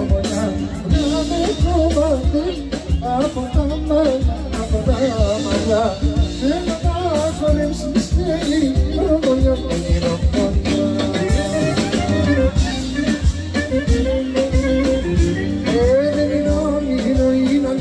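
Live band playing a Macedonian folk dance tune, loud and continuous: a wavering, ornamented melody over a steady, heavy drum beat.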